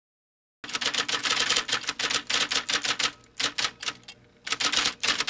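Typing sound effect: a quick run of keystroke clicks, starting about half a second in and broken by two short pauses, as on-screen text types itself out.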